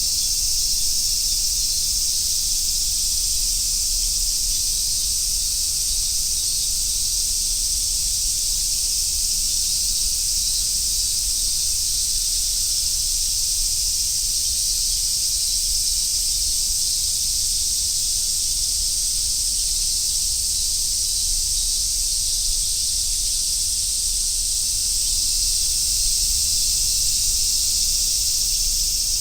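Dense chorus of summer cicadas, a steady high-pitched buzzing that runs without breaks or pulses.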